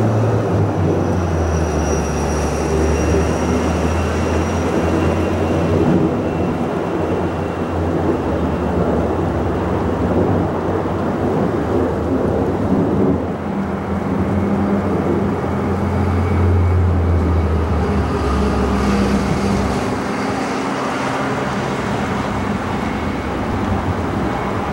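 Boeing 757 twin jet engines at takeoff power as the airliner climbs out, a loud continuous rumble with a steady low drone and a thin high whine over it.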